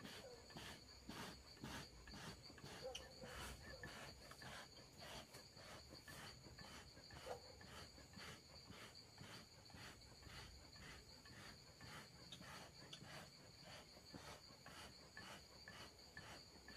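Faint, steady high-pitched insect trilling, with a regular pulse about two or three times a second.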